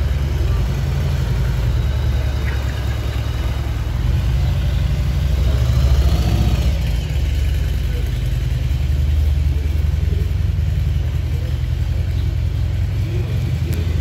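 Harley-Davidson V-twin motorcycle exhaust with a deep, uneven low rumble as a bike rides slowly past, swelling about six seconds in, with a car moving close by.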